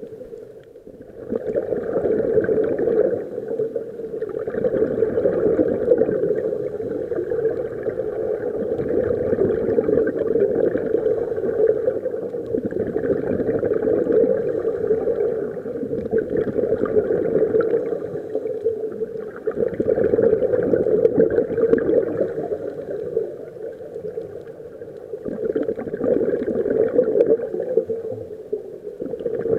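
Scuba divers breathing through their regulators underwater: the exhaled air bubbles out in a rumbling, gurgling rush every few seconds, about seven surges in a row in the rhythm of their breathing.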